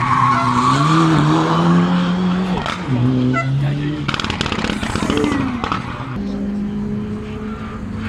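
Mitsubishi Lancer Evolution rally car's turbocharged four-cylinder revving hard as the tyres skid through a corner. The engine pitch rises, drops at a gear change about two and a half seconds in, and climbs again. A steadier engine note follows near the end.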